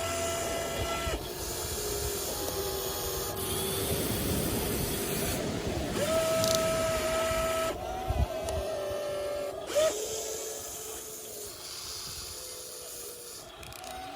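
Small electric motors of an RC toy excavator whining as its arm and tracks are driven in bursts, the pitch stepping up and down as each motion starts and stops.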